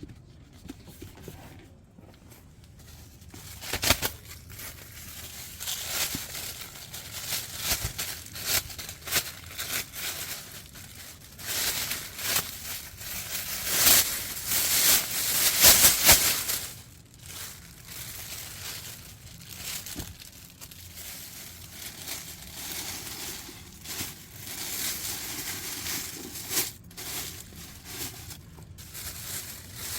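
Irregular crinkling and rustling of crinkly material being handled, with a few sharp knocks, busiest about halfway through.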